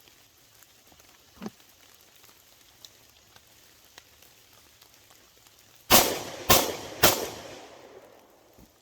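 Three pistol shots from a prototype pistol, fired about half a second apart, each ringing out briefly before fading. Firing stops after the third shot, at what the shooter takes for a stovepipe jam.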